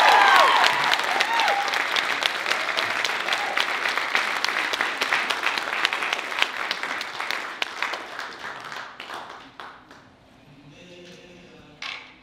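Audience applauding at the end of a sung song. The last held note dies away just as the clapping takes over, and the applause thins and fades out after about nine seconds.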